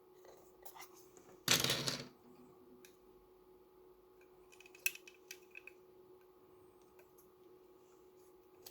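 Small hard objects being handled: scattered light clicks and taps, with one brief louder scrape or rustle about a second and a half in.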